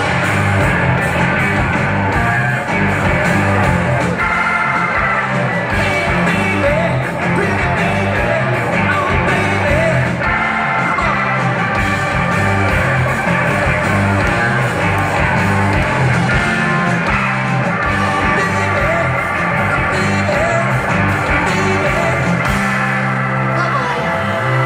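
Live rock band playing at full volume: drums, bass, electric guitars and keyboards with a male lead singer, recorded on a phone's microphone from the audience in a large hall.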